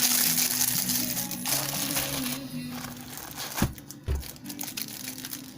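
Crinkling of packaging being handled over background music, dying away after about two seconds, then two soft thumps about half a second apart.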